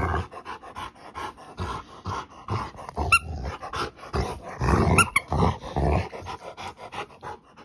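Rottweiler play-growling in short low bursts and panting hard while tugging on a toy, with two brief high squeaks about three and five seconds in.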